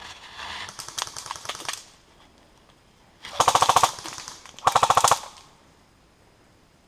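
Airsoft electric guns firing on full auto: quieter, ragged rapid fire for the first two seconds, then two loud, close bursts of rapid even clicking, each under a second long, about a second apart.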